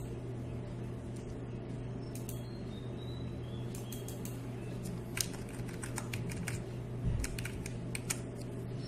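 Computer keyboard keystrokes while a line of code is edited: a few scattered key clicks, then a quicker run of keypresses from about halfway in. A steady low hum lies underneath.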